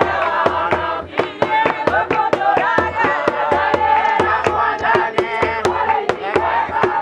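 A group of voices singing together over a fast, steady percussive beat.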